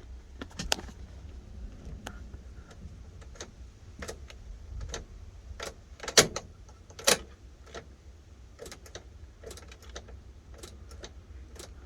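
Irregular light clicking from the 2006 Impala as it fails to start, over a low steady hum, with the two loudest clicks about six and seven seconds in. The owner takes the symptom for a bad ground wire.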